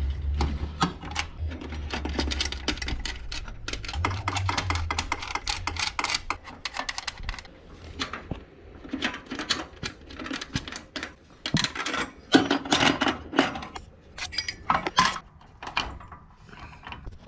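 Ratchet wrench clicking rapidly as bolts are undone on a garage door opener mount, followed by irregular metal clinks and rattles of the loosened hardware.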